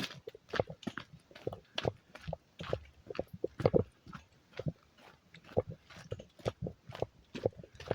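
Footsteps on a hiking trail at a steady walking pace, about two steps a second.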